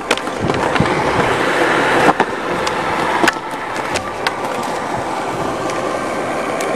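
Skateboard wheels rolling over concrete, a continuous rough rumble broken by several sharp clacks.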